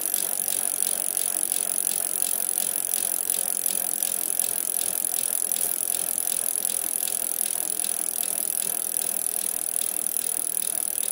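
Bicycle freewheel hub ticking in an even, quick rhythm as the wheel spins, over a steady high hiss.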